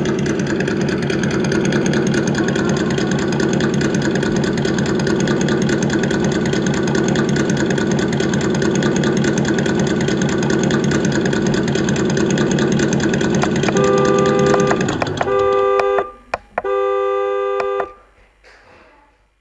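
Sense Innovations ESS DUAL engine sound simulator in a Traxxas TRX-4 Sport crawler, playing a steady idling engine sound through its two speakers. Near the end the engine sound stops and the unit's simulated horn honks three times, the last honk the longest.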